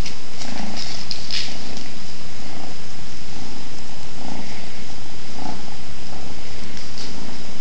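Kitten purring steadily, with a few light clicks and scratches in the first second and a half.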